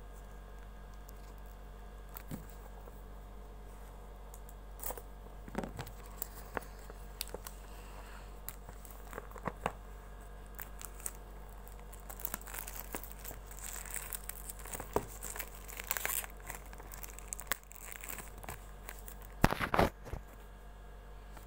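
Clear plastic shrink wrap being torn and peeled off a small cardboard box, crinkling and crackling in irregular bursts that grow busier toward the end, the loudest burst near the end.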